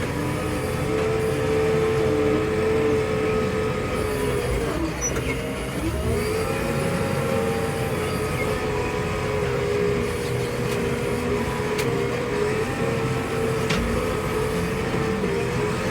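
JCB 3DX backhoe loader's diesel engine running steadily at working speed. About five seconds in, its pitch sags and then climbs back up.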